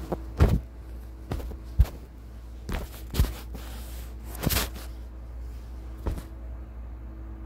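Phone microphone handling noise: about seven sharp knocks and rustles as the phone is moved and rubbed against fabric, stopping a little after six seconds in, over a steady low hum.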